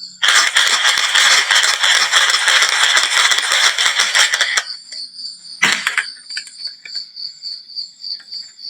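A large batch of marbles rattling and clattering together for about four and a half seconds, then stopping, followed by a single sharp knock of a marble a second later.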